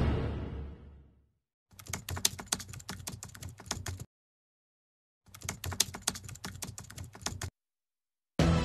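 Music fading out, then two runs of rapid keyboard typing clicks, each about two seconds long with a silent gap between, a typing sound effect as text cards appear.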